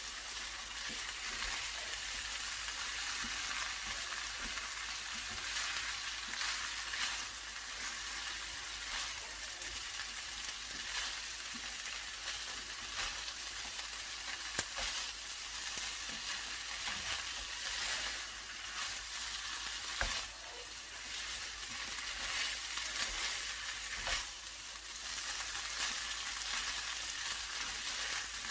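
Bracken fern (gosari) stir-frying in a pan: steady sizzling as it is stirred and turned, with a few sharp clicks.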